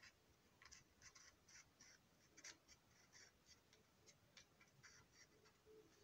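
Faint, quick scratchy strokes of a colouring tool rubbed over the plastic body of an O gauge box car, many short strokes in an uneven rhythm.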